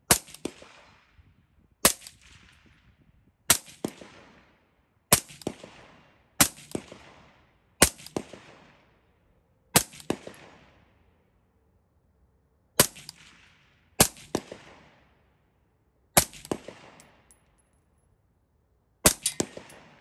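Suppressed AR-15-type rifle fired slowly in semi-automatic, about eleven shots one to three seconds apart, each with a short after-crack and a fading ring.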